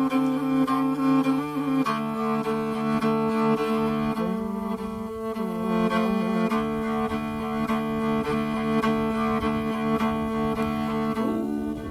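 Mongolian throat-singing music dominated by held low drone notes with a bowed-string sound, the notes shifting pitch a few times.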